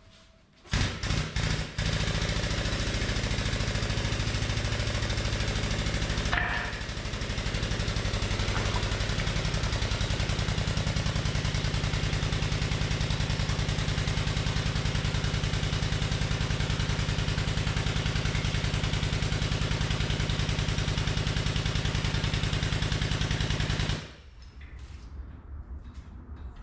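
A machine running steadily with a fast, even chatter. A few knocks come about a second in, and the sound cuts off suddenly near the end.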